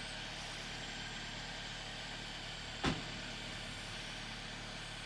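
Steady background noise with one short, sharp knock a little under three seconds in.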